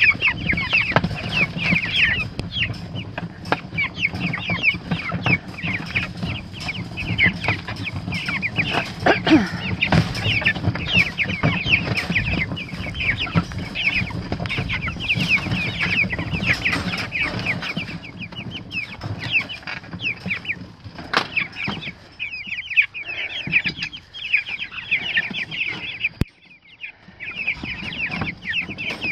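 A crateful of three-week-old meat chickens peeping nonstop, many short falling chirps overlapping. A low rumble runs under them until about two-thirds of the way through, and there is a single sharp click near the end.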